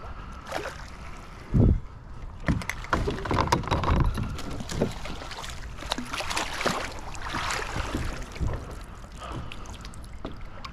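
Hooked trout splashing at the surface as it is drawn in and scooped into a landing net, with knocks and bumps of gear against the kayak. A loud thump comes about one and a half seconds in.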